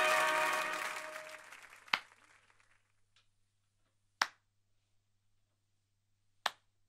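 Closing music and applause fade out over the first two seconds. Then a man claps his hands three times, slow single claps about two seconds apart, over a faint low hum.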